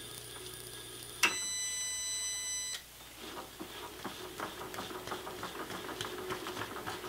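Milling machine spindle running steadily, then shut off a little over a second in, followed by a loud steady tone for about a second and a half that cuts off suddenly. After that come irregular light clicks and knocks of hands working the vise and machine.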